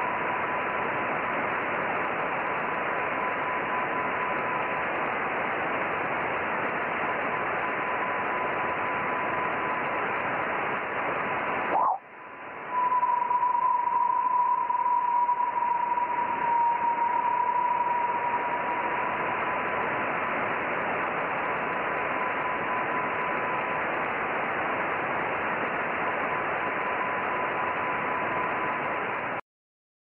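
Radar receiver audio from a US space-surveillance radar during the Perseid meteor shower: steady radio static with a constant thin whistle running through it. About twelve seconds in the static drops out for a moment, then the whistle returns louder and slightly wavering for several seconds, a meteor echo, before settling back. The sound cuts off suddenly near the end.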